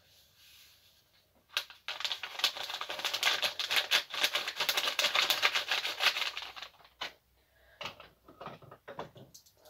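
Priming sugar poured from a packet into a plastic jug of hot water: a dense granular patter for about five seconds, then a few scattered ticks.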